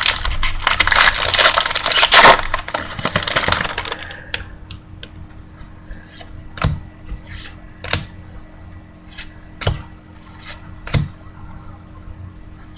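Plastic trading-card pack wrapper torn open and crinkled for about four seconds, then single light snaps as the cards are flipped, about one a second.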